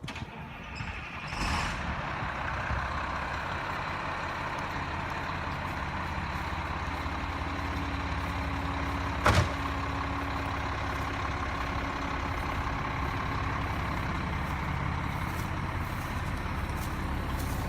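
Diesel engine of a 1999 Blue Bird LTC-40 motor coach idling steadily, with a single sharp knock about nine seconds in.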